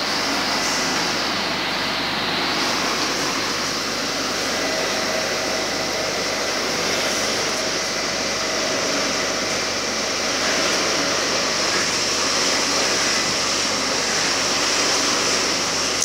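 Batch fryer at work: hot oil sizzling steadily around a load of frying snack strips, with the steady hum of the stirring paddle's gear drive underneath.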